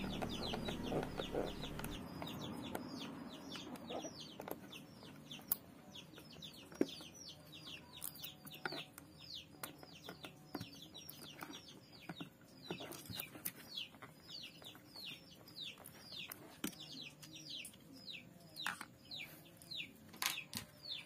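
Small clicks and taps of a screwdriver and screws against the plastic sprayer housing as the water pump's mounting screws are taken out. Behind them, birds chirp constantly: rapid, high, downward-sliding calls several times a second.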